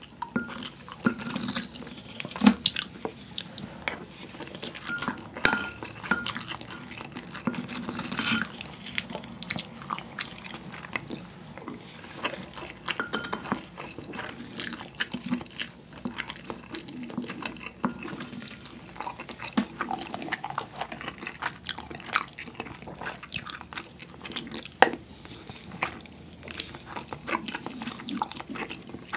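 Close-miked eating: a spoon clinking and scraping in a ceramic bowl, with wet chewing and mouth smacks as rice is eaten, in many irregular sharp clicks.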